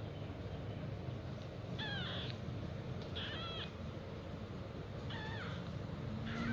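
A very young ginger kitten mewing, about four short, high, thin calls a second or so apart, each bending in pitch: distress calls for its absent mother.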